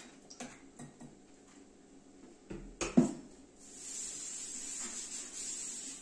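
A few light clicks, then a sharp knock about halfway through. After that, kitchen tap water runs into a stainless-steel sink with a steady hiss.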